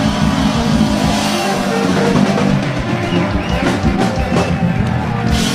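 Music with a drum beat.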